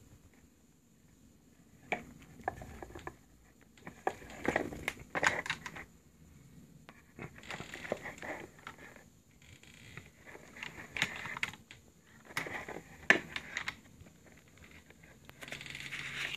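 Handling of a leather long wallet: irregular clinks of its metal clip hardware among scraping and rustling of the leather and its paper tags, in short clusters every second or two, with a longer rustle near the end as a paper tag is handled.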